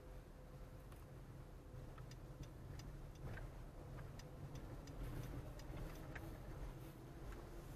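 Car turn-signal indicator ticking steadily, about two to three clicks a second, starting about two seconds in and stopping near the end, over a low hum of engine and road noise inside the cabin.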